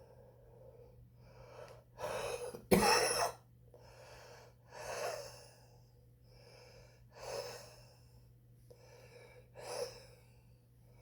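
A heavy cigarette smoker breathing hard, one noisy breath every two to three seconds, with a loud, sharp cough about three seconds in.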